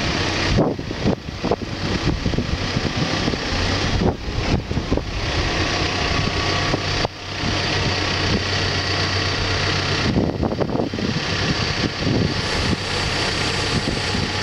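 Backhoe's diesel engine running steadily, a continuous low hum with mechanical noise over it.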